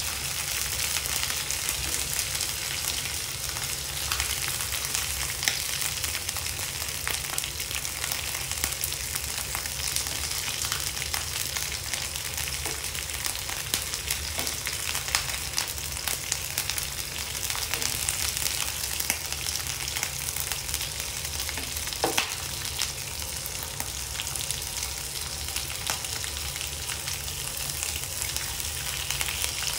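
Sliced pork belly and garlic cloves sizzling steadily in oil in a nonstick frying pan, with occasional light taps and scrapes of a spatula as the slices are turned.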